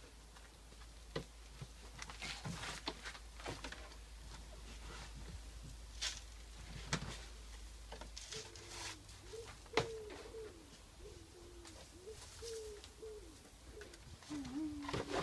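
Scattered rustling and tapping as old chicken-coop bedding is scraped off a tray into a bin, then, from about eight seconds in, a pigeon cooing in a repeated low phrase that steps between two notes.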